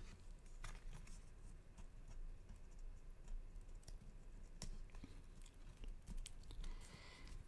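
Faint handling of paper and cardstock: scattered light clicks and rustles as hands fold and adjust the pieces of a pop-up card.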